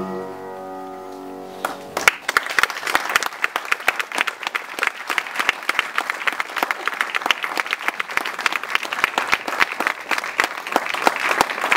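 The last sung note and piano chord die away, and about two seconds in an audience starts applauding, the clapping going on steadily.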